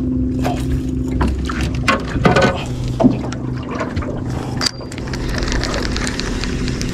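Electric trolling motor on a small fishing boat giving a steady low hum. Scattered clicks and knocks come from tackle being handled in the boat.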